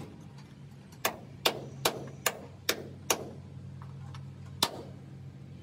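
Hammer tapping: six sharp, evenly spaced strikes, about two and a half a second, then one more near the end, over a low steady hum.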